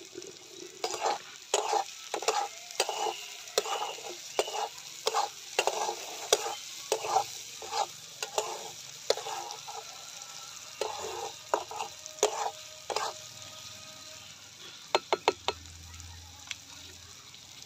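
Metal spatula scraping and stirring an onion and tomato masala in an iron kadai, about one and a half strokes a second, over a steady sizzle of frying. A few sharp taps near the end.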